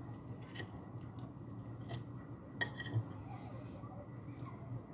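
Metal fork and spoon clinking and scraping against a ceramic plate while cutting up a boiled egg: several light, scattered clinks.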